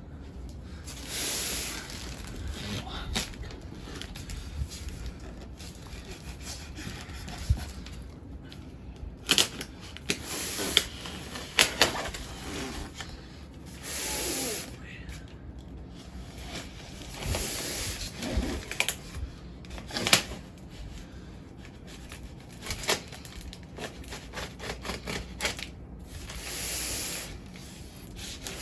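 Packing material of a large boxed statue being handled: rubbing, scraping and rustling in runs about a second long, with sharp cracks and clicks here and there.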